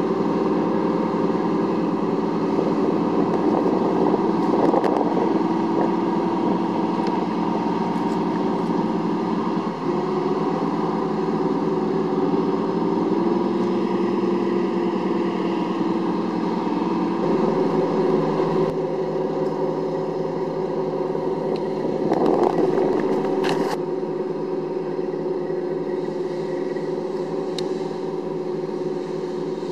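Engines of a LARC-LX amphibious cargo vehicle running steadily under load as it drives off the beach into the water. The engine note shifts slightly twice, and there is a brief clatter a little over two-thirds of the way through.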